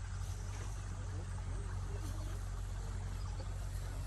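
Single-cylinder diesel engine of a công nông farm vehicle running steadily with an even low chugging hum, with faint voices in the background.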